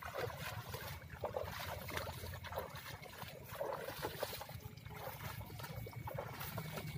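Water sloshing and splashing in soft, irregular splashes about once a second, as someone wades through shallow paddy water.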